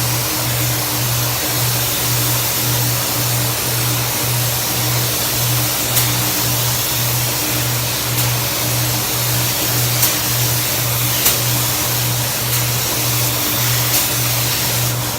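Background music with a steady bass beat, about two pulses a second, over a constant hiss of noise, with a few sharp clicks.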